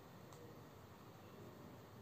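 Near silence: faint room tone with a steady hiss and one faint tick about a third of a second in.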